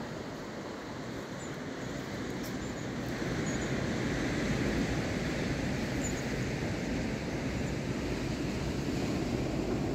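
Steady rushing noise of sea surf breaking on a rocky shore, mixed with wind on the microphone, swelling a little about three seconds in.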